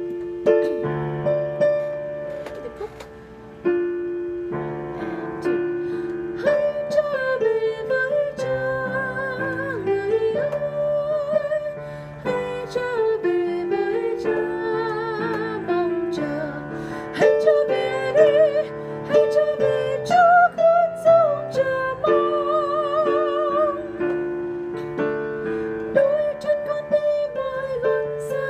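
A woman singing the women's melody line of a Vietnamese hymn's refrain, with vibrato on the held notes, over block chords on a keyboard.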